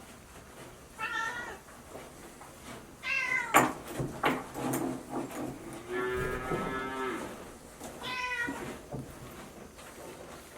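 Domestic cat meowing several times, short calls with a falling pitch, and a longer, steadier call about six seconds in.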